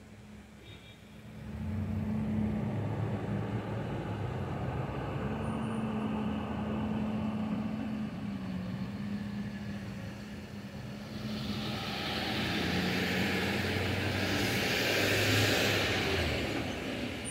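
A motor vehicle's engine running: a low drone comes in about a second and a half in and wavers slightly in pitch. From about eleven seconds in a broad rushing noise swells, loudest near the end, then eases off.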